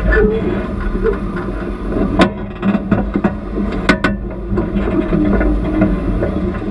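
Off-road vehicle engine running at low speed over rocks, its pitch wavering slightly. Sharp knocks cut through it about two seconds in and twice around four seconds in, as the vehicle jolts over the rocks.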